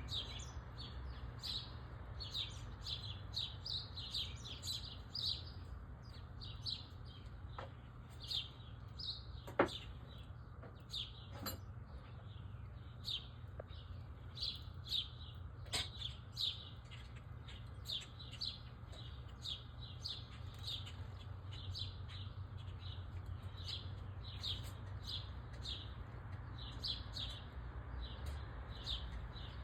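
Small birds at a feeder chirping in quick, short, repeated notes, many calls overlapping, with a few sharp clicks over a steady low hum.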